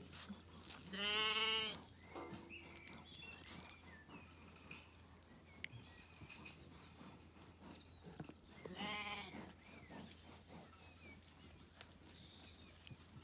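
Zwartbles sheep bleating twice: a loud, quavering bleat about a second in and a softer one about nine seconds in.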